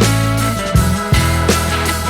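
Background rock music with a steady beat, bass and guitar.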